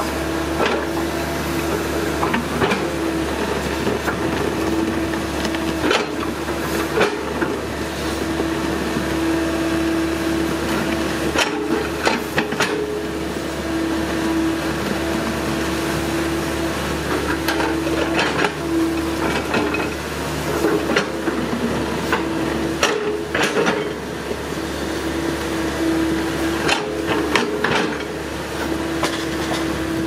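Excavator running steadily with a constant whine over its engine hum, broken by frequent knocks and clanks as it works.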